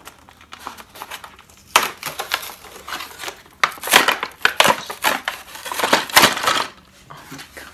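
Cardboard and plastic toy packaging crinkling and crunching as a boxed toy train is wrestled out of it, in a run of loud, irregular crunches from about two seconds in until shortly before the end.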